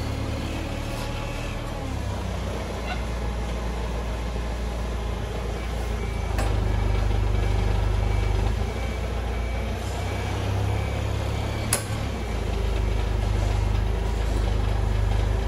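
Steady low machine rumble from the lifting gear taking the weight of the old engine on its chain. It grows louder for a couple of seconds about six seconds in and again near the end, with a single sharp metallic knock just before twelve seconds.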